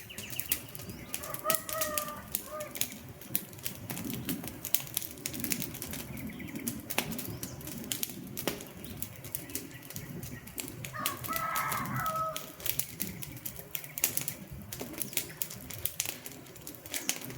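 Wood fire crackling and popping with irregular sharp snaps over a low steady rumble of burning. A bird gives a short call twice, about two seconds in and again near the middle.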